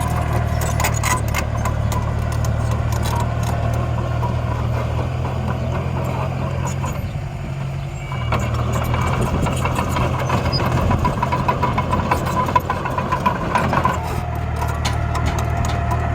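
Miniature dump trucks and bulldozer running with a steady engine drone, with scattered clicks and rattles as soil and stones are moved. The drone dips briefly about seven seconds in, then picks up again.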